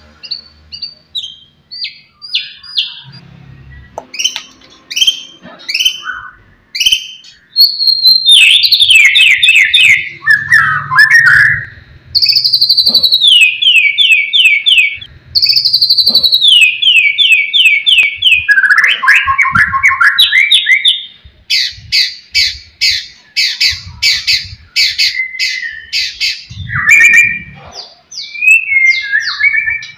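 White-rumped shama (murai batu) singing loudly and continuously, phrase after phrase of fast repeated notes, many sliding down in pitch, with a long rapid run of notes in the second half.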